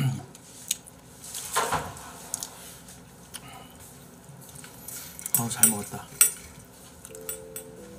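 Tableware being handled: scattered light clinks and knocks, with a few sharper, ringing metallic clinks about five to six seconds in.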